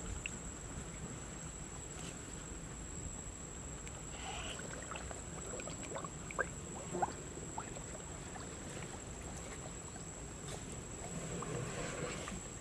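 Water lapping and sloshing gently at the surface among lily pads, with a low wind rumble on the microphone. Small drips and light splashes come between about four and seven seconds in, and the sloshing swells again near the end.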